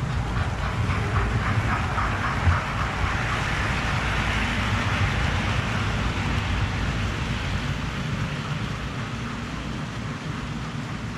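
Model trains running on a layout's track: a steady motor whirr and wheel noise, with rapid ticking over rail joints in the first few seconds. The sound swells as a train passes close by around the middle, then eases off toward the end.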